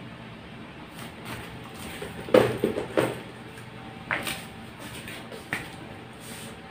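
A black handbag being handled and set down on a wooden slat table: a few short knocks and rustles of the bag and its strap hardware, loudest about two and a half seconds in, with smaller knocks near four and five and a half seconds.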